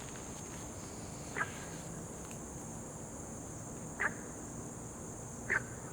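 Frogs calling: three short, sharp calls a second or two apart, over a steady high-pitched insect drone.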